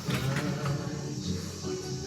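Background music: an old-fashioned pop song with a steady beat, in its instrumental part.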